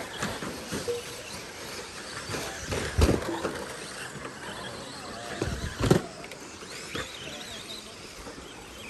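Radio-controlled buggies racing on a dirt track: small motors whining up and down in pitch over tyre noise on dirt, with two loud knocks about three and six seconds in.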